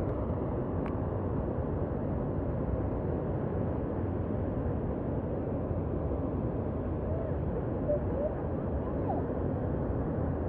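Creek water running over rocks: a steady rushing noise.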